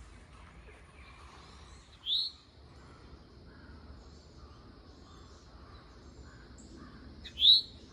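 A bird gives two loud, short upward-sweeping calls, one about two seconds in and another near the end, over the faint chirping of other woodland birds.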